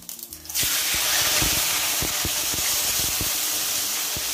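A whole gourami fish slid into plenty of hot oil in a wok: a few small clicks, then about half a second in the oil starts sizzling loudly and keeps on steadily, with scattered pops and crackles.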